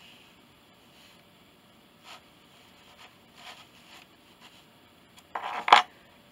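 Faint rustles of yarn being worked with a crochet hook, then a louder, half-second rustle ending in a sharp click about five and a half seconds in as the hook is set down on the cardboard wreath form.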